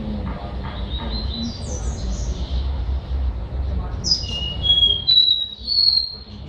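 A caged caboclinho, a small Sporophila seedeater, singing: a run of short, high whistled notes, some sliding down, and then louder, clearer whistles in the second half, over a steady low rumble.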